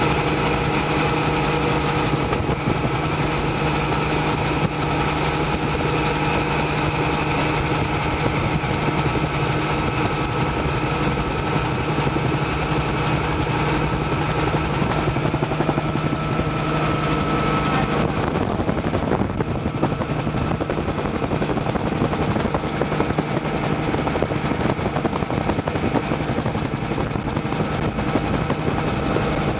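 Helicopter engine and rotor noise heard from inside the cabin in flight: a steady drone with several held tones. About eighteen seconds in, one higher tone drops away and the sound shifts slightly.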